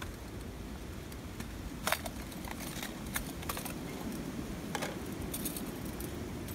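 Scattered small metallic clicks and clinks of a compact Iwatani gas burner being handled and set up, over a steady low rumble.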